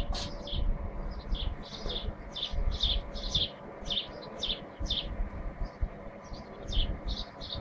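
Small birds chirping over and over, short high chirps a few each second, over an uneven low rumbling noise.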